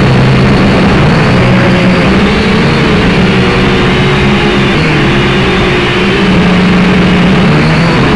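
A drone's electric motors and propellers buzz loudly at close range in flight, their pitch wavering up and down as the motors change speed, over a steady rushing hiss.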